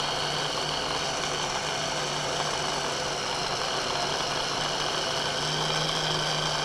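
Electric hand blender with a chopper bowl running steadily, grinding ground peanuts, sesame seeds and honey into a compact paste; a steady motor whine with a low hum.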